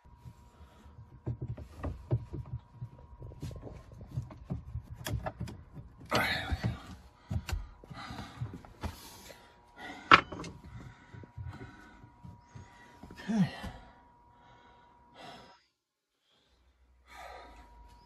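Scattered knocks, thunks and rubbing from a wooden cabinet piece being handled and fitted into an empty overhead cabinet, with one sharp knock about ten seconds in. A faint steady high tone runs underneath until near the end.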